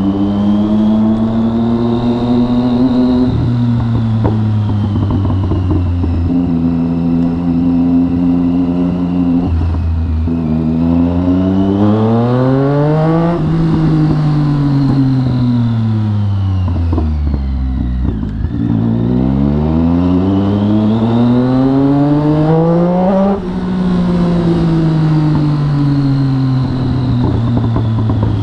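Triumph Street Triple's three-cylinder engine heard from the saddle while riding. The note holds steady at first, then twice rises for a few seconds as the throttle opens and sinks slowly as the bike slows; the second rise is cut off suddenly as the throttle shuts.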